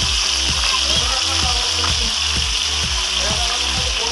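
Rabbit tapa sizzling as it fries in hot oil in a nonstick pan, over background music with a beat of about two a second.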